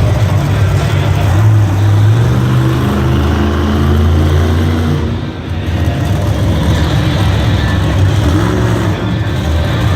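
A monster truck's supercharged V8 engine revving and running hard, its pitch rising and shifting. The sound dips briefly about halfway through, then builds again.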